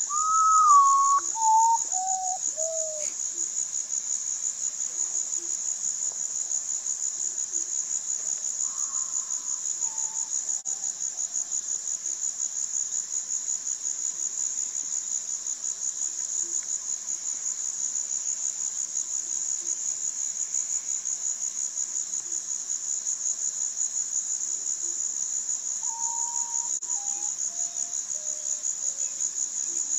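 Common potoo singing: whistled notes falling step by step in pitch. There is a loud phrase of about five notes at the start, a faint phrase around ten seconds in, and another phrase of about six notes near the end, over a steady high insect trill.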